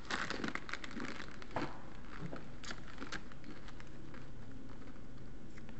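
A plastic snack-chip bag of rolled tortilla chips crinkling and rustling as a hand digs in and pulls a chip out. It is dense for the first second and a half, then comes in scattered crinkles that die away about three seconds in.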